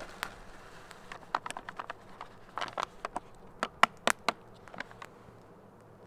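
Small campfire of thin sticks crackling, with irregular sharp pops that come thickest and loudest around the middle.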